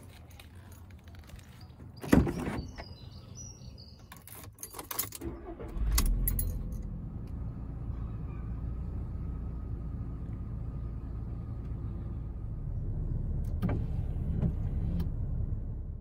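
Clicks and key jingles, with a loud thud of a car door shutting about two seconds in. About six seconds in, a car engine starts and runs steadily, its note rising a little near the end.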